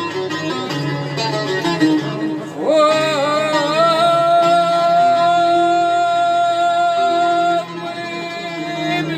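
Moroccan song played live with a singing melody and plucked-string accompaniment; the melody holds one long note for about five seconds in the middle, then drops back near the end.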